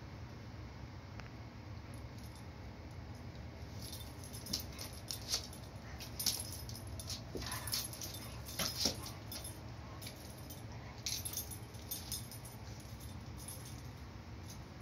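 A puppy and a kitten tussling on a blanket: scattered light jingles and clicks from their harness hardware, bunched between about four and twelve seconds in, over a steady low hum.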